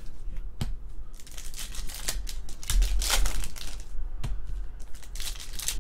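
Trading cards and foil card-pack wrappers being handled: crinkling and rustling, with two sharp taps, one shortly after the start and one about four seconds in.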